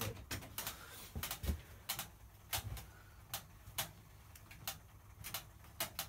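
Hoover Ecologic 1300 washing machine just set running on a cotton 60 programme, giving a run of sharp ticks about two a second, not quite evenly spaced.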